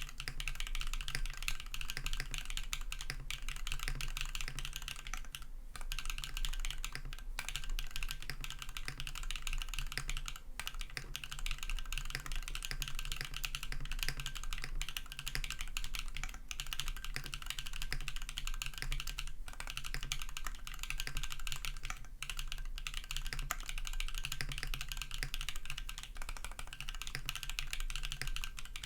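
Continuous fast typing on a custom KMG B60 mechanical keyboard with a full carbon-fibre plate, lubed BSUN RAW switches and PBT keycaps: a dense stream of keystroke clacks broken by a few brief pauses.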